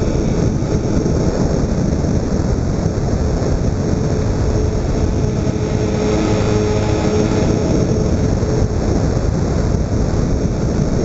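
Steady rush of wind and motor noise picked up by a camera riding on a twin-engine RC model plane in flight, with a faint steady hum underneath.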